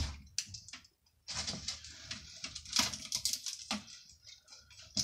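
Trim being pried and peeled off an old shelf by hand: irregular crackling, scraping and tearing, with a short lull about a second in.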